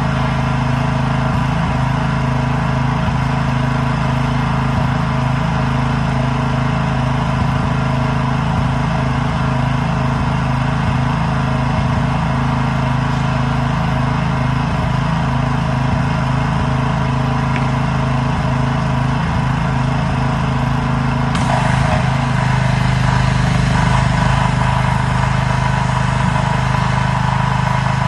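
Small-engine pressure washer running steadily. About three-quarters of the way through its note shifts slightly and a brighter spray hiss joins, as when the spray is working.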